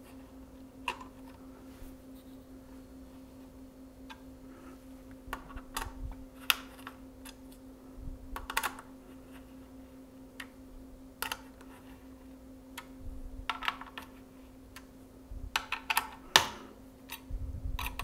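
Scattered sharp clicks and metallic ticks from the Threadripper Torx torque screwdriver pressing and turning on a Foxconn TR4 socket's retention screws, pushed down hard to make a stiff screw catch. A faint steady hum runs underneath.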